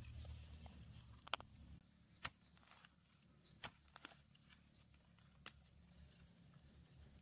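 A few sharp, irregularly spaced knocks of a hand tool striking and digging into grassy soil, the loudest about a second and a half in, against near silence.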